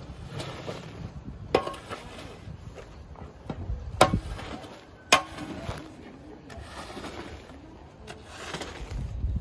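Metal squeegee dragged through soapy foam and water across a wet shag rug: wet swishing strokes, with three sharp clacks in the first half.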